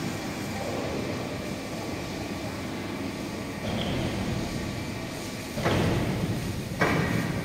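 Steady machinery noise and hum echoing in a large factory hall, with two sudden louder clanks about a second apart near the end.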